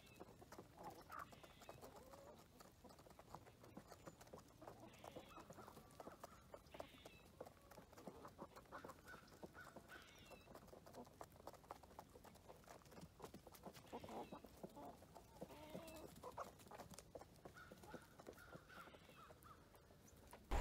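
Faint clucking of chickens, short calls now and then, with scattered small clicks and taps.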